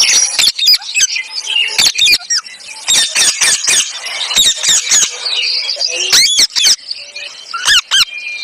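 Parrot squawking and screeching in a rapid, irregular series of short, sharp calls, with a few quick rising-and-falling whistled calls around the sixth and eighth seconds.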